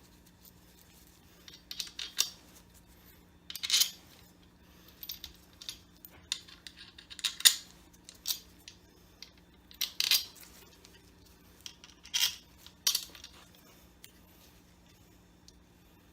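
Metal hand tools and engine parts clinking and clattering in short, sharp bursts at irregular intervals, the loudest about halfway through, during removal of a Ford 4.6 V8's intake manifold. A faint steady hum lies underneath.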